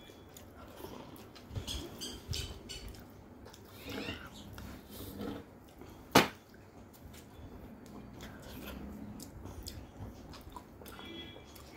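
A person chewing and eating rice with curry by hand, with small wet mouth sounds and clicks. One sharp, loud click comes about six seconds in.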